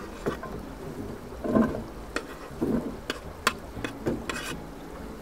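Chopped onions sizzling in hot oil in a frying pan, with a scatter of sharp clicks and scrapes from a utensil against the pan as they are pushed around.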